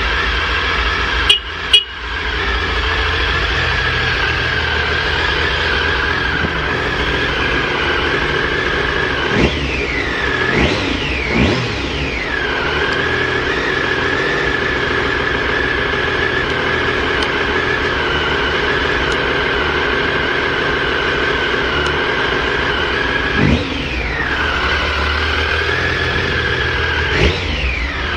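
Triumph Speed Triple inline three-cylinder motorcycle engine idling steadily, with no abnormal noise, in the seller's words. The throttle is blipped a few times in the middle and twice near the end, and the revs rise and fall back to idle. Two sharp clicks come about a second and a half in.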